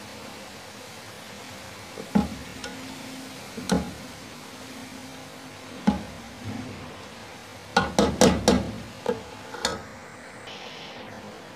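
A spatula stirring grated carrots in a cooking pan, knocking and scraping against the pan at intervals, with a quick run of knocks about eight seconds in, over a steady hiss.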